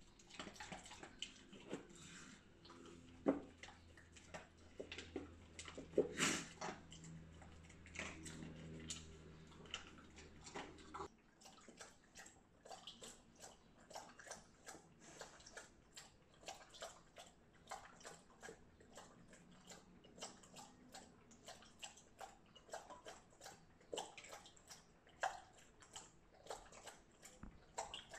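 An Alaskan Malamute eating dry kibble from a plastic slow-feeder bowl, with scattered clicks. About a third of the way through, it is replaced by the dog lapping water from a bowl in a quick, even rhythm of wet laps.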